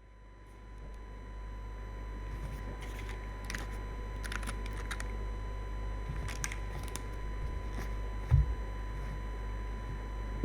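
Crystalis80 mechanical keyboard with Durock POM linear switches in a stainless steel plate, leaf-spring sandwich mount, being typed on: sparse single keystroke clicks in short clusters. A low thump comes about eight seconds in.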